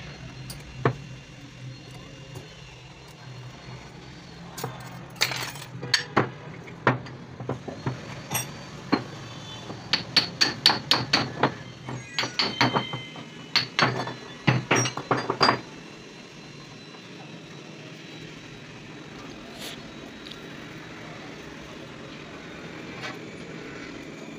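A hammer striking steel parts again and again, each blow with a short metallic ring. There are a few scattered blows, then quick runs of strikes through the middle, and a steady low hum stops about two-thirds of the way through.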